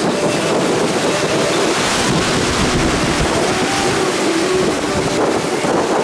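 Sea waves washing on a sandy beach, mixed with wind buffeting the microphone: a steady loud rush with no breaks.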